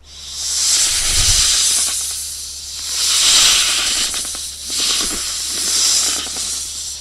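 Snake hissing in threat: three long hisses, each swelling and fading, following one another closely.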